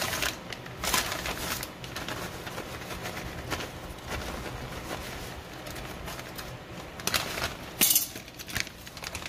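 Plastic bag of shredded cheese crinkling in short bursts as it is shaken and squeezed out, the loudest burst about eight seconds in, over a steady low hum.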